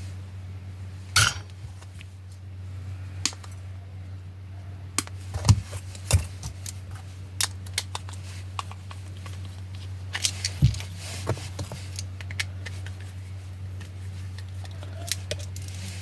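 Scattered clicks and taps of tools and plug parts being handled while a power cord is repaired, irregular and of varying loudness, over a steady low hum.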